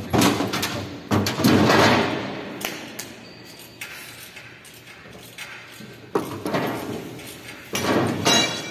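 Knocks, thumps and rattling of metal and fibreglass parts and tools being handled while a ride car is taken apart, in a large hall. The bursts come in irregular clusters: one just after the start, a longer one around one to two seconds in, a sharp knock about six seconds in, and another burst near the end.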